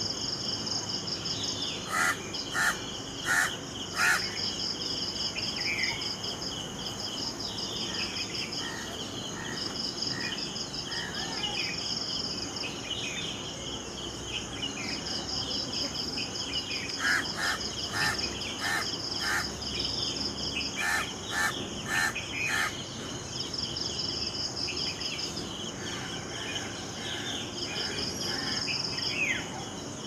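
House crow cawing in short calls: four about two to four seconds in, then two runs of about five calls each past the middle. Under them, insects trill steadily with a fast pulsing beat.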